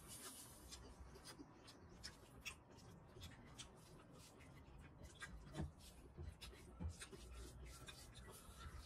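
Faint clicking and rubbing of fingers mixing curry and rice against a plate, with a couple of slightly louder knocks a little past halfway.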